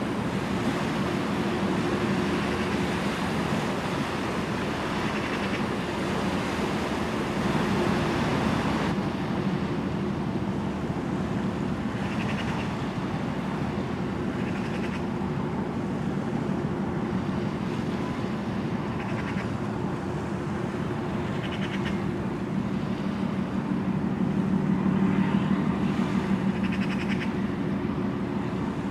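Steady low drone of ship engines from the tug and container ship working close together, swelling a little near the end, with wind rumbling on the microphone until about nine seconds in. A few short bird calls come through now and then.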